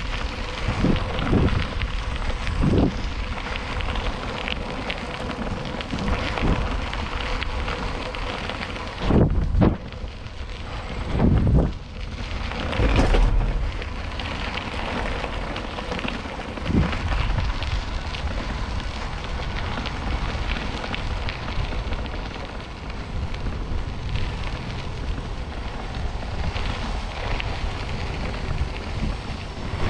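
Wind buffeting a bicycle-mounted camera's microphone over steady crackling tyre noise from riding the trail, with several heavier gusts near the middle.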